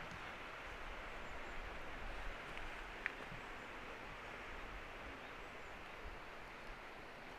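Steady forest ambience: an even hiss with uneven low rumbling from wind on the microphone, and one small click about three seconds in.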